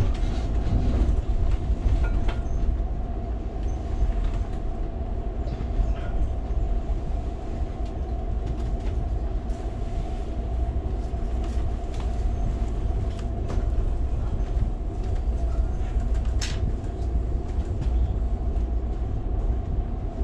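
Interior ride noise of an Amtrak California Zephyr passenger car running at speed: a steady low rumble from the wheels and rails, with a constant hum and scattered light clicks, one sharper click about two-thirds of the way through.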